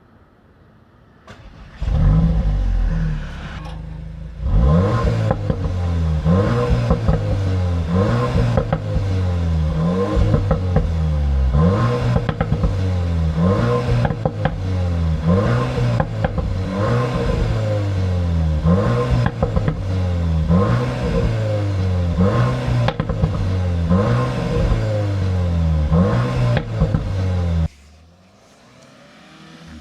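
Cupra Formentor VZ's 2.0 TSI turbocharged four-cylinder starting with a loud flare that settles toward idle. It is then revved over and over, about once every second and a half, with crackling pops as each rev falls. The engine cuts off suddenly near the end.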